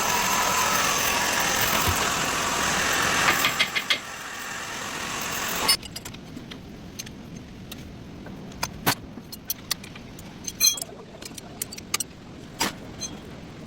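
Hyundai Sonata engine running with a loud, steady, harsh noise from a worn serpentine-belt pulley bearing. It rattles briefly, swells, then stops abruptly about six seconds in. Scattered sharp metallic clicks follow.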